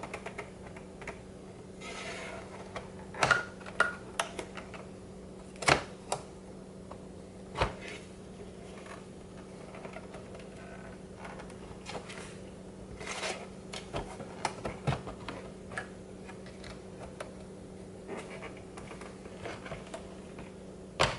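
Irregular clicks, taps and knocks of a Denon MC6000 DJ controller's casing being handled and worked apart, the top panel coming loose from its metal chassis. The loudest knocks cluster a few seconds in, with one more near the end.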